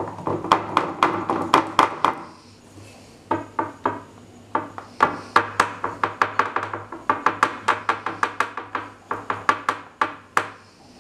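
A fork pricking rounds of pizza dough, its tines going through the dough and tapping the metal baking tray in quick runs of sharp clicks, about four a second, with two short pauses.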